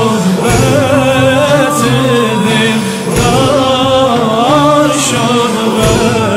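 Sufi dhikr singing: a male lead voice with a wavering, ornamented melody, backed by a group of men's voices.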